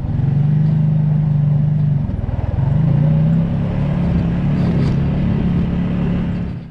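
Quad (ATV) engine running as it is ridden along a dirt trail. It eases off briefly about two seconds in, then picks up again and holds steady, fading out at the very end.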